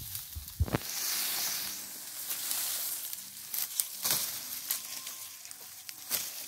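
Dry sugarcane leaves and trash crackling and rustling underfoot, with a few sharp snaps or knocks scattered through it.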